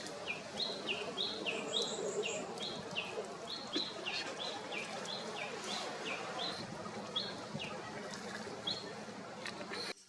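A songbird singing a repeated two-note phrase, a high note followed by a lower falling one, over and over, with a brief higher trill from another bird about two seconds in.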